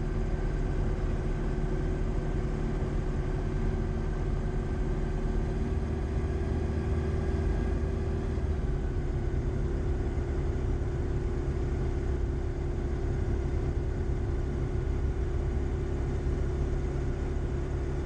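Light sport aircraft's piston engine and propeller running steadily at low power, heard from inside the cockpit; the engine note drops slightly about halfway through.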